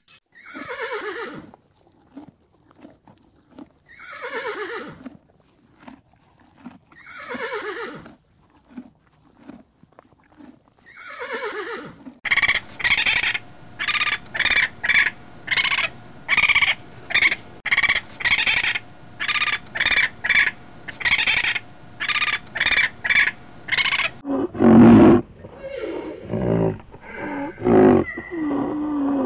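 A horse whinnying four times, each neigh falling in pitch and lasting over a second. Then a fast run of short, high raccoon calls, about two a second, for some twelve seconds. Near the end come a rhinoceros's lower, louder calls.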